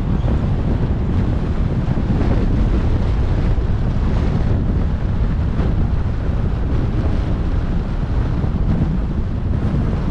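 Steady wind rushing over the microphone of a camera on a moving car, heaviest in the low rumble, with road noise beneath it.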